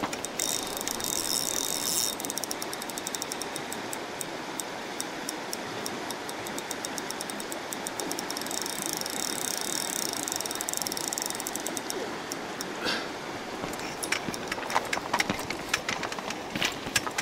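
A spinning reel's drag buzzing in two runs as a large hooked rainbow trout pulls line, about half a second in and again around the middle, with quick reel clicks near the end. Under it, the steady rush of the river.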